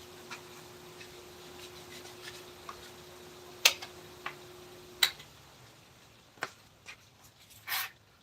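A few sharp, scattered taps and knocks, with a short scrape near the end, over a faint steady hum that stops about five seconds in.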